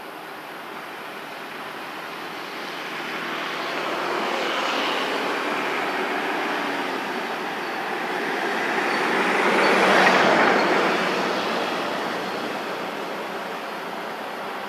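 A motor vehicle passing by: a broad rushing noise that swells over several seconds, peaks about ten seconds in, then slowly fades.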